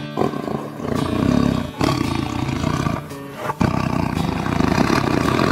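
Tiger roaring, three long rough roars in a row, over background music.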